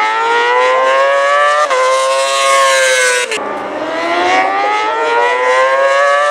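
Moto2 racing motorcycle's 600cc Honda inline-four running hard and accelerating through the gears. The engine note climbs, drops sharply at an upshift just past three seconds in, and climbs again.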